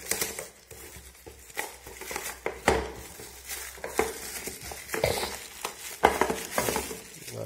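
Small plastic Singer sewing-machine accessory box being handled and opened: irregular sharp plastic clicks and knocks with light rustling.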